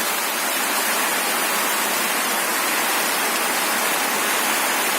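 Steady, heavy monsoon rain falling.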